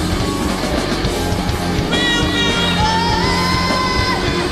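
Loud rock music from a full band: drums and guitar with a singing voice, and held high notes sliding in about two seconds in.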